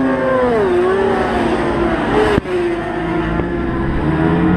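Racing sport-bike engines running hard on the circuit. The engine note falls in pitch as bikes pass and ease off, breaks off abruptly about halfway through, then climbs again as another engine revs up. Wind buffets the microphone underneath.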